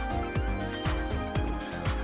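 Background music with a steady kick-drum beat, about two beats a second, over held synth tones.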